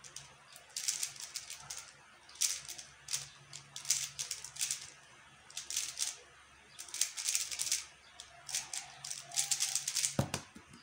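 QiYi X-Man Tornado V1 3x3 speedcube being turned fast, with quick runs of plastic clicking and short pauses between them. A thump near the end.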